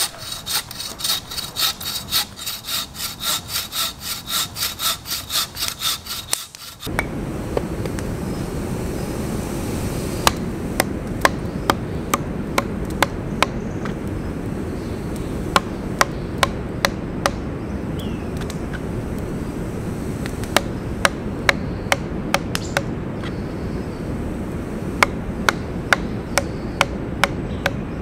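Handmade wooden bucksaw cutting through a log in quick, even back-and-forth strokes, about three a second. The sawing stops about seven seconds in and gives way to a steady hiss with scattered sharp cracks.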